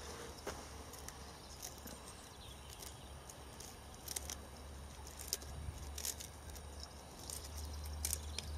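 Purple sprouting broccoli stems being cut and snapped by hand with a small knife, the pieces dropping into a steel pot: faint scattered snaps and crackles over a low steady hum.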